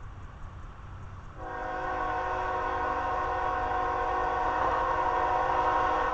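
Air horn of CSX freight locomotive 3117 on the approaching train, sounding one long, steady chord of several notes. It starts about a second and a half in and is held for about four and a half seconds.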